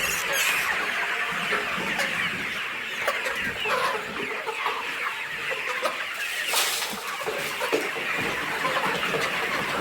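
A large flock of ten-week-old layer pullets clucking and chirping all together, with no let-up. About six and a half seconds in there is a brief rustling noise.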